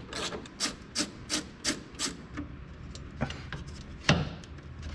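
Hand tool working on a truck's engine ground connection that has lost continuity: a run of short rasping strokes about three a second, thinning to a few separate clicks over the last couple of seconds.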